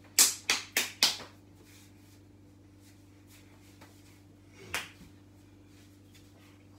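Four quick, sharp hand claps within about a second, then a single clap a few seconds later, over a faint steady hum.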